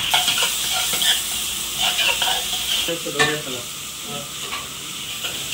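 Chopped onions, garlic and whole spices frying in fat in an aluminium pressure cooker, with a steady sizzle and a spoon stirring and clinking against the pot. This is the onion-and-spice base of a kabsa frying before the meat goes in.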